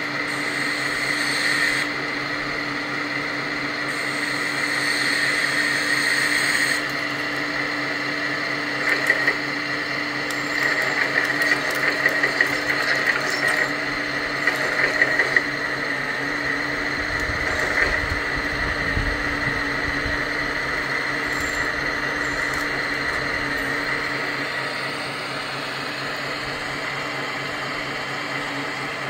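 1/14-scale RC hydraulic Volvo excavator working: a steady whine from its hydraulic pump and drive motors, with a run of sharp clicks from its tracks between about 9 and 15 seconds in as it crawls onto a trailer deck.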